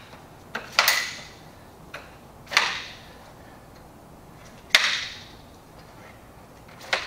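Shock-corded aluminium poles of a folding camp chair frame snapping into their hub sockets as the elastic pulls each one in: four sharp clicks about two seconds apart, each with a short ring.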